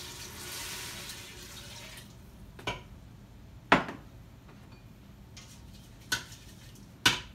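Chicken stock poured from a measuring cup into the Instant Pot's inner pot over the toasted rice for about two seconds, then four sharp knocks of kitchenware against hard surfaces, the loudest about halfway through.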